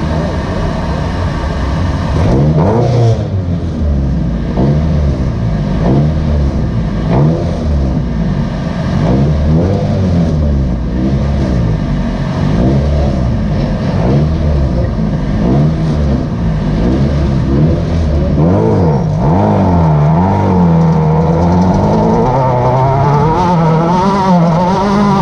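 Class 10 off-road race car's engine revving up and down under hard driving, its pitch rising and falling about once a second, then holding higher and steadier near the end.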